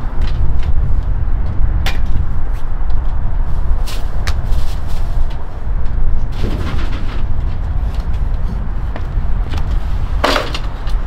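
A steady low rumble with a few sharp knocks and clatters from a metal hand truck being set down and packs of 2-liter soda bottles being loaded onto it. The loudest clatter comes near the end.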